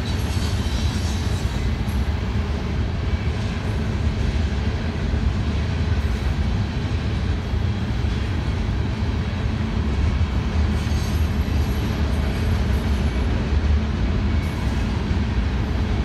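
Mixed freight train's cars rolling past, a steady low rumble.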